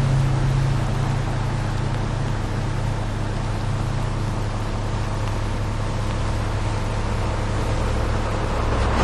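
Concrete mixer truck's diesel engine idling steadily.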